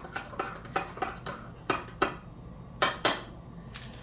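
A spoon stirring coffee in a cup, clinking against the sides in an uneven string of clinks that slows as it goes. Two sharp, louder clinks come close together about three seconds in.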